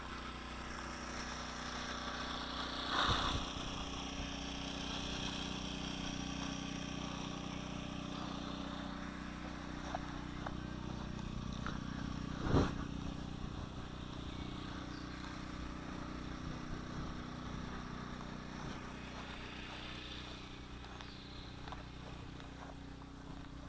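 Radio-control model airplane engine running steadily, a constant hum. It is broken by two sharp knocks, about three seconds in and about twelve seconds in, the second the loudest.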